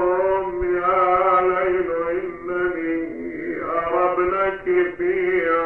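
A man chanting Arabic elegy verses in long, drawn-out sung phrases, holding each note at a steady pitch. This is the mournful lament recitation of the Karbala story that follows the sermon's spoken narrative.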